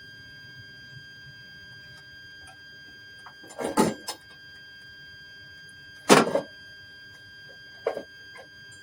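Handling noises from work on a pulled distributor: a short clatter of several knocks a little over three seconds in, a single sharp knock, the loudest, about six seconds in, and a lighter knock near the end.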